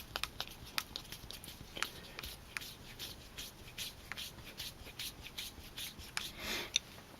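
A small hex wrench driving screws into the plastic housing of an RC truck's transfer case, with faint, irregular light clicks and ticks of the tool and parts.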